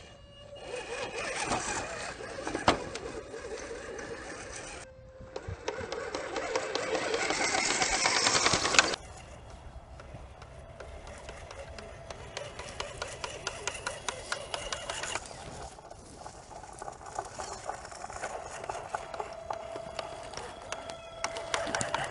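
Electric motor and gear drive of an RC scale crawler on an Axial chassis whining steadily as it crawls, over rapid clicking and crackling from its tyres and body on dirt and twigs. The sound changes abruptly about five and nine seconds in.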